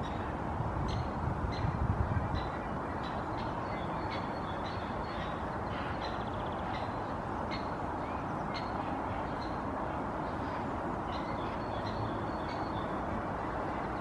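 Male great spotted woodpecker calling incessantly: a short, sharp call repeated at irregular intervals, often about two a second, over a steady low background rumble that swells briefly about a second or two in.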